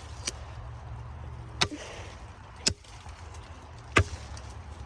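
Machete chopping into a small tree: sharp blows about one a second, three solid strokes and a lighter one near the start.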